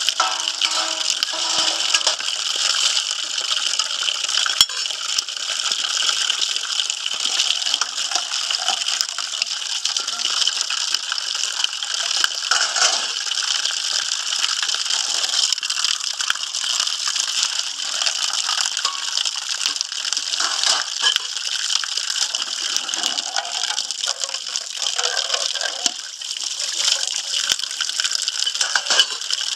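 Water running or gushing steadily, with scattered small clicks and rattles.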